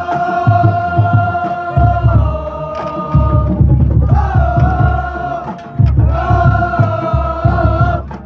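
Marching band playing: the brass holds long, loud chords in phrases of a second or two, over steady drum beats.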